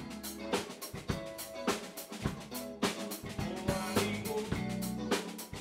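A live rock band playing: a drum kit with bass drum and snare keeping a steady beat of about two hits a second, under an electric bass and a Stratocaster-style electric guitar.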